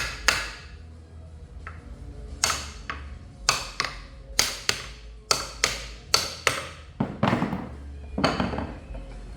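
Hammer blows on metal, about a dozen sharp strikes that ring briefly, often two in quick succession, driving a part home during reassembly of a Tesla Model 3 drive unit's differential.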